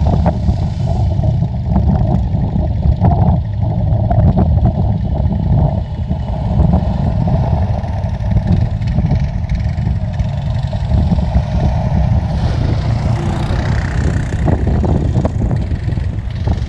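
A quad bike's (ATV's) engine running as the quad rides past on a dirt track.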